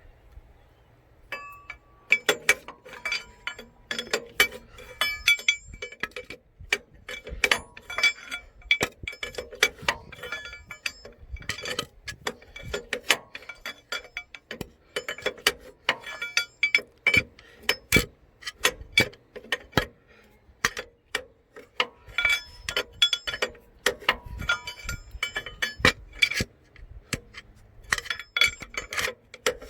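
Metal hand tools working on a truck engine's belt-adjusting bolts: dense runs of sharp metallic clicks and clinks with short ringing, starting about two seconds in and pausing briefly about two-thirds of the way through.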